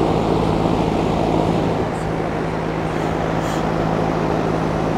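A motor-driven shop machine running steadily: a loud, even rush of air over a constant low motor hum.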